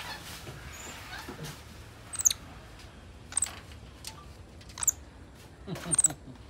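White-faced capuchin monkeys giving short, sharp, high-pitched squeaks, one about every second or so from two seconds in. The last squeak is the loudest and has a lower rasping sound beneath it.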